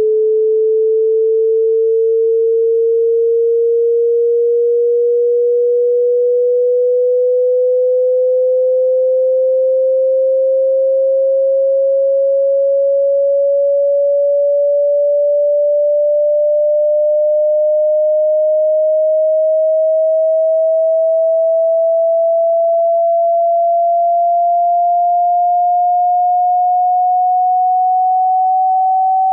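Pure sine test tone from a hearing-test frequency sweep, rising slowly and evenly in pitch at a steady level, climbing to nearly double its starting pitch.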